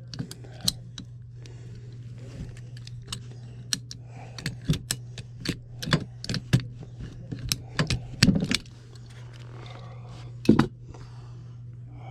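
Irregular clicks and knocks of hand work with tools and plastic parts, with two heavier knocks near the end, over a steady low hum.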